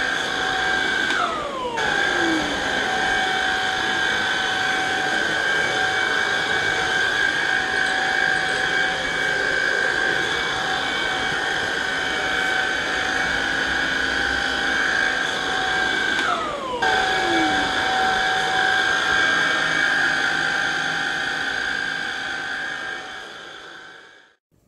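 Vacuum cleaner motor running with a steady high whine, twice briefly dipping with a tone that slides down in pitch. It winds down and stops near the end.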